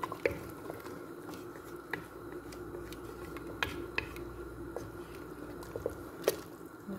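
Wooden spoon stirring chicken pieces in a watery tomato broth in an aluminium pressure-cooker pot: wet sloshing with several sharp knocks of the spoon against the pot, the loudest about six seconds in, over a steady low hiss.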